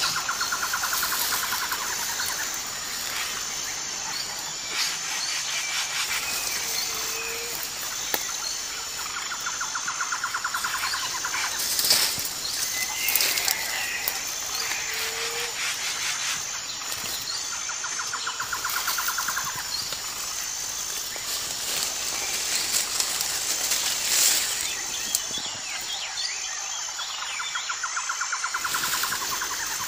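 Jungle ambience with birds calling. A pulsed, trilling call comes back about every nine seconds over a faint steady high tone, with a few short gliding calls in between.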